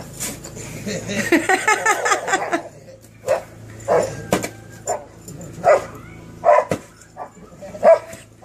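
Dog barking at play, jumping at a snow shovel as it is swung: a string of short, sharp barks, about eight in the second half.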